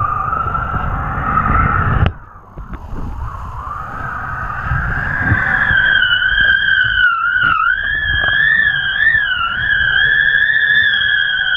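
Wind whistling past a camera mounted on kite lines: one wavering tone that bends up and down with the gusts, over wind rumble on the microphone. The rumble drops away sharply about two seconds in. From about six seconds the whistle is clearer and steadier.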